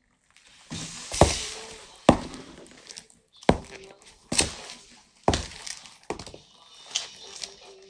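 Footsteps of black leather riding boots fitted with spurs on a hard floor, about seven heavy heel strikes at roughly one a second.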